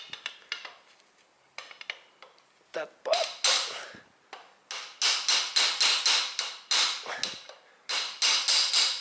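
Hammer blows on the head of a long screwdriver wedged against a Toyota Corolla's right driveshaft inner joint, driving the shaft out of the gearbox: sharp metallic strikes with a ring, in three runs of about three blows a second with short pauses between, the joint still not released.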